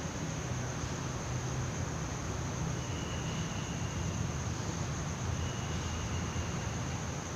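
Steady background noise: a low hum under an even hiss, with a thin, continuous high whine. A faint short tone sounds twice, a few seconds apart.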